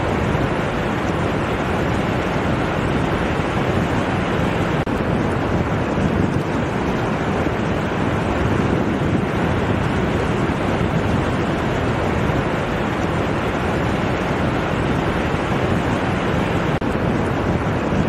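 Ocean surf breaking offshore and washing up a sandy beach: a steady, even rush of water.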